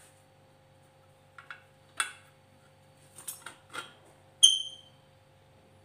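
Light metal clicks and knocks of a thin steel reinforcing bar being handled in a homemade steel rebar bender, then one bright ringing metal clink about four and a half seconds in, the loudest sound. A faint steady hum lies underneath.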